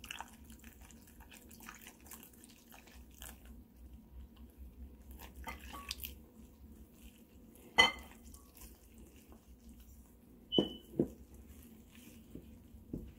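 A gloved hand stirring flour and water into a sticky dough in a plastic bowl: quiet soft scraping and squishing. A sharp, ringing glass clink comes about eight seconds in, and a knock with a short ring about ten and a half seconds in, as the glass measuring cup is knocked and set down.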